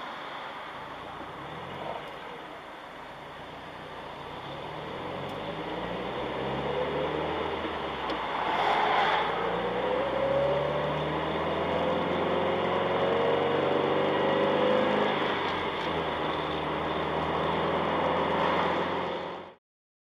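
A car's engine and road noise, heard from inside a moving car. The sound grows louder as the car pulls away and gathers speed, with the engine note climbing upward several times, then cuts off abruptly near the end.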